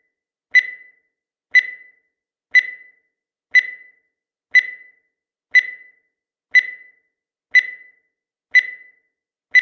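Countdown timer sound effect: a short, sharp tick once a second, about ten in a row, each with a brief fading tail.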